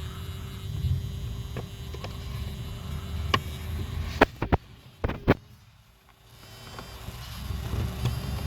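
Hands working the plastic cabin filter access door into place, with a few sharp plastic clicks and knocks, most of them in the middle, over a faint steady hum.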